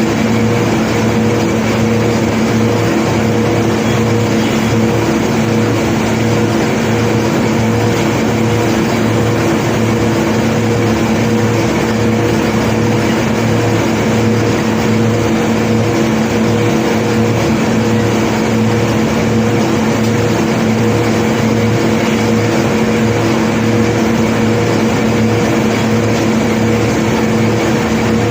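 A heavy engine running steadily at one constant speed, a drone with several steady tones that does not change, with no clatter of stones.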